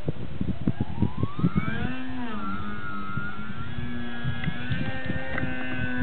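Radio-controlled model aeroplane's motor and propeller whining, the pitch rising over the first two seconds, dipping briefly, then holding steady. Gusty wind rumbles on the microphone underneath.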